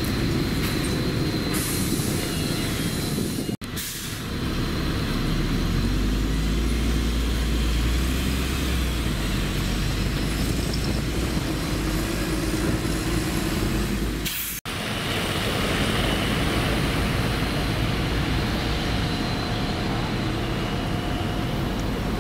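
Outdoor city street noise: a steady low traffic rumble, in three takes that cut off abruptly about three and a half and fourteen and a half seconds in.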